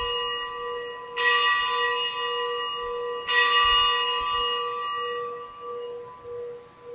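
A bell struck at the elevation of the chalice after the consecration. The ring of one strike is fading, then two more strikes come about two seconds apart, each ringing out long over a low pulsing hum.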